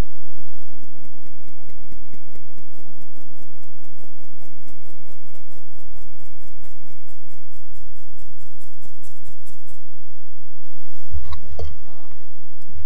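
Hand tapping a fine-mesh flour sieve at about four light taps a second as flour sifts into a glass bowl. The tapping stops, and near the end a wooden spatula knocks and scrapes in the glass bowl as the flour is folded into the batter.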